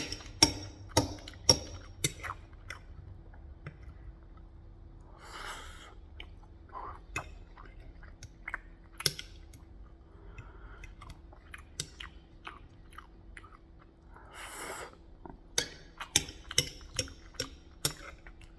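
A person eating close to the microphone: chewing with wet mouth smacks and clicks, a run of sharper clicks in the first couple of seconds and again near the end, and two breathy rushes of air, one about a third of the way in and one about three-quarters in. A faint steady hum sits underneath.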